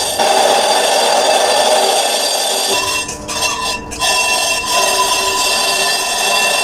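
Bus brake drum being machined on a lathe, the cutting tool making the cast-iron drum ring with several steady high-pitched tones over a rough scraping hiss. The sound dips briefly and the ringing tones change about three to four seconds in.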